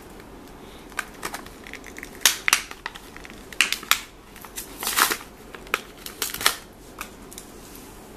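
A Hot Wheels blister card being torn open by hand: the plastic blister and cardboard backing crackle and tear in a run of irregular bursts, ending about a second before the end.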